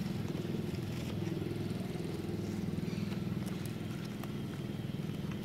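An engine running steadily with a fast low pulsing, with a few faint clicks over it.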